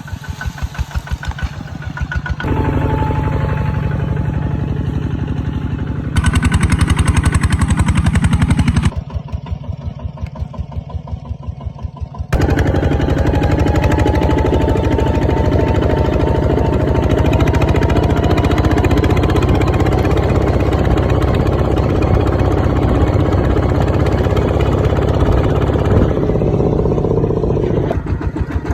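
Kubota ZT140 single-cylinder diesel engine on a two-wheel walking tractor chugging, its separate firing beats clearly spaced. The level jumps up and down abruptly several times, loudest from about a third of the way in and again through the second half.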